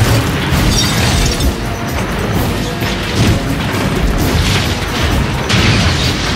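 Action-film soundtrack: a music score mixed with the noise of a crashed car burning, with a few sudden crashing hits.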